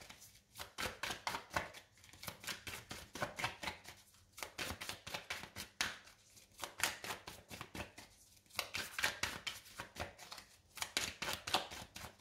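A tarot deck shuffled hand over hand, the cards slapping and flicking against each other in quick runs of clicks, with short pauses between runs about every two seconds.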